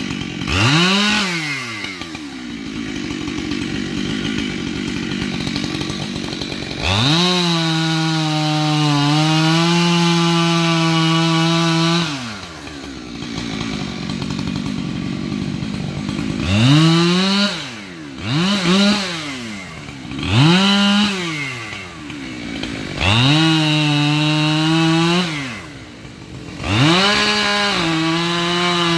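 Two-stroke chainsaw revved up to full throttle several times, dropping back to idle between. One long high-revving stretch lasts about five seconds; the other bursts are quick blips.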